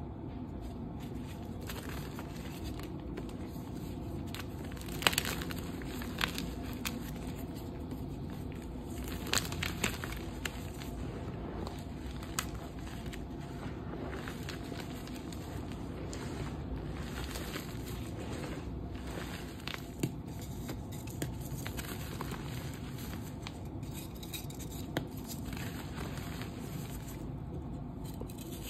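Hands crushing and crumbling dusty gym chalk reforms into loose powder: a steady crackly crunching with scattered sharper snaps, the loudest about five seconds in and again around nine to ten seconds.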